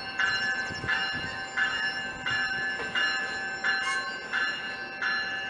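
A warning bell striking steadily, about one and a half times a second, its ring hanging between strokes, over the low rumble of double-deck passenger cars rolling slowly past.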